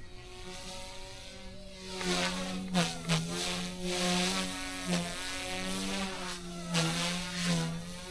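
Eachine E120S micro RC helicopter flying: a steady electric buzz from its motor and spinning rotors, quieter at first, then louder from about two seconds in, with the pitch dipping and swooping several times as it is manoeuvred.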